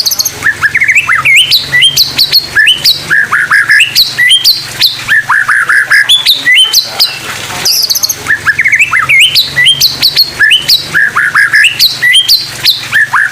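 A murai songbird singing a fast, loud song of sharp whistled notes, quick rising and falling slides and rapid clicking chips, in the 'tembakan' (shot) style. The same run of phrases repeats about eight seconds in.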